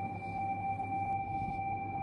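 A steady high-pitched hum of two held tones over a low, evenly throbbing hum and faint background noise.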